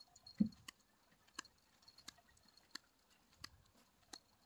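Faint footsteps on wooden planks: scattered light clicks, irregularly spaced, with one soft, heavier thump about half a second in.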